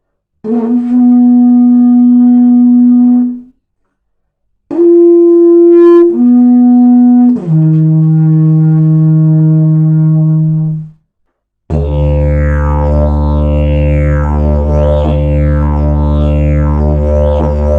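Kosmika "Bauxite" slide didgeridoo being played. First come separate held notes with short gaps between them, stepping down in pitch. Then, about twelve seconds in, a steady low drone starts and continues, with sweeping, rhythmic overtone patterns over it.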